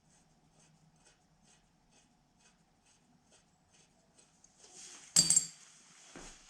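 Metal hand-tool work on a motorcycle's rear wheel: faint, light clicks about two a second, then a short hiss and, about five seconds in, a sharp metallic clink with a brief ring.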